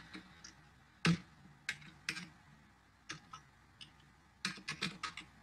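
Typing on a computer keyboard: a few separate keystrokes, the loudest about a second in, then a quick run of several keys near the end.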